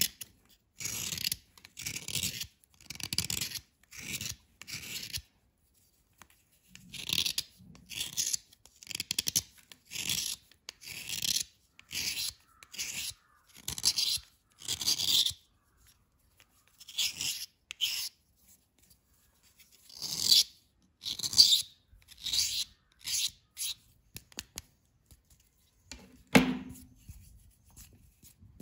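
A small knife blade scraping a dry, powdery white bar in short rasping strokes, about one a second, with a few brief pauses.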